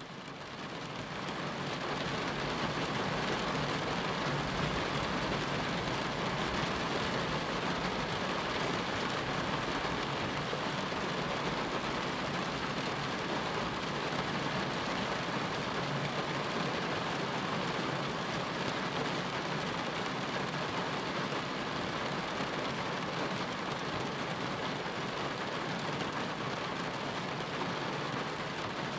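Steady, dense rain, fading in over the first couple of seconds and then holding even.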